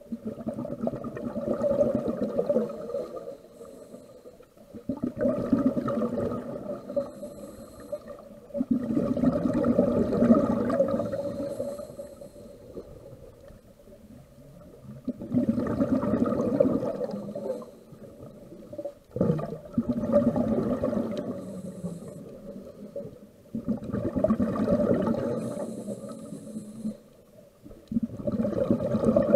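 Scuba diver breathing through a regulator underwater: a bubbling rumble of exhaled air in bursts of two to three seconds, about every four to five seconds, with a faint hiss in some of the quieter gaps between.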